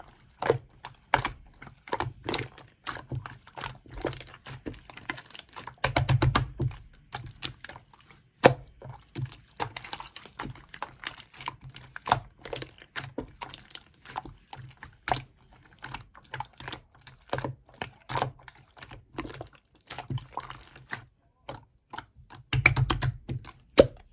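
Slime being squished and pressed by hand: a run of irregular wet clicks and pops, thicker and louder around six seconds in and again near the end.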